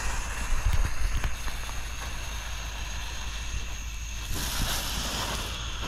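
Red Rhino Kids Garage novelty firework, a small car-shaped ground fountain, hissing steadily as it throws sparks; the hiss turns sharper about four seconds in.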